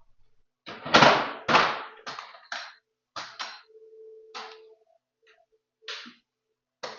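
Metal tools clanking and knocking as a toolkit is handled and searched, a string of sharp separate knocks with the two loudest about a second in.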